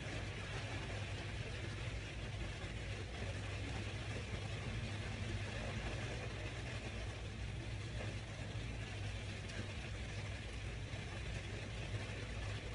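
Steady low hum with an even hiss over it, unchanging throughout, with no distinct clicks or knocks.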